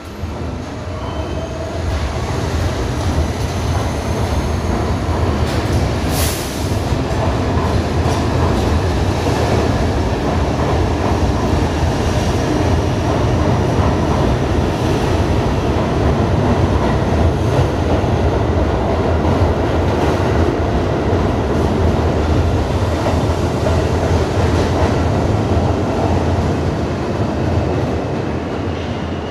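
R32 subway train pulling out of the station and picking up speed along the platform: a steady, loud rumble of wheels on rail, with a sharp snap about six seconds in, falling away near the end as the last car clears the platform.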